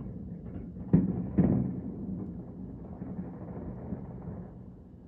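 Distant firework shells bursting: two dull booms about half a second apart, roughly a second in, each followed by a rumbling tail, over a low steady background rumble.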